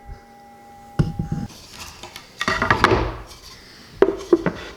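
Knocks and clatter of hard objects being handled and set down on a workbench: a sharp knock about a second in, a longer clattering run in the middle, and two more knocks near the end.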